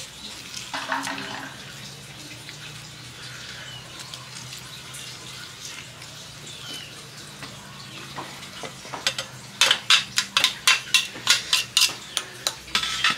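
A metal spoon stirring grated banana stem in a glass bowl, clinking sharply against the glass about three times a second, starting about nine seconds in.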